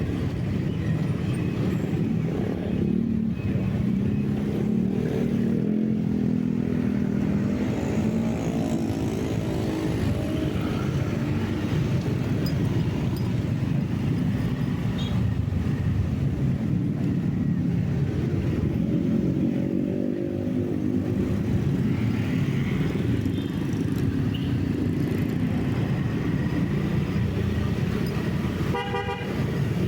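A vehicle's engine running on the move, its pitch rising and falling with speed over a steady rumble of road noise. Near the end a horn toots briefly.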